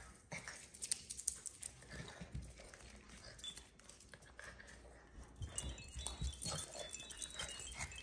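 A Shih Tzu puppy and a Yorkshire terrier scuffling over a chew toy on a hardwood floor: scattered sharp clicks and knocks of claws and toy on the wood. A run of short high-pitched sounds comes in about five and a half seconds in.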